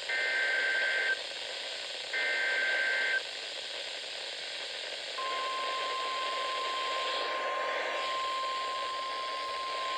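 NOAA Weather Radio alert signal over steady radio hiss: two one-second bursts of SAME header data, a rasping two-tone warble, about a second apart. They are followed about five seconds in by the long steady 1050 Hz warning alarm tone. The header encodes a snow squall warning (SQW), and the tone signals that a warning message follows.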